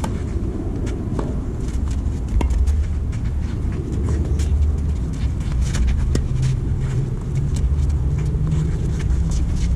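Tennis rally: sharp pops of the ball struck by rackets and bouncing, with scuffing footsteps on the clay court, several times over a steady low rumble. A low steady hum joins the rumble about halfway through.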